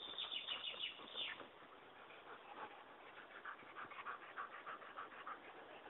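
German Shepherd dog giving short high whines in the first second or so, then panting quickly and rhythmically, about five breaths a second.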